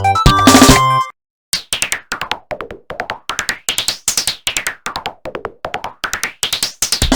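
Polyphonic mobile-phone ringtone music from a Yamaha MA-7 synthesizer. A busy tune ends about a second in and there is a short silence. Then comes a rapid, even run of short electronic notes that each fall in pitch, and a new tune with a bass line starts near the end.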